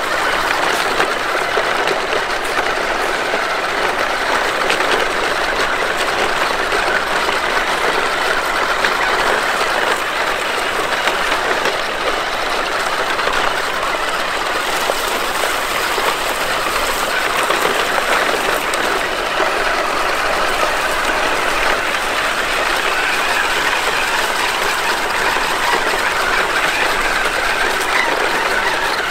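Traxxas TRX-4 RC crawler's electric motor and geared drivetrain whirring steadily under load as it tows two other RC trucks.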